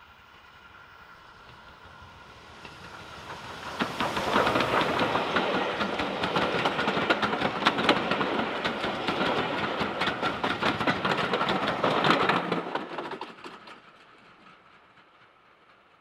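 Steam-hauled heritage train passing close by, its wheels clicking rapidly over the rail joints. It builds from about two seconds in, is loudest from about four to twelve seconds, then fades away.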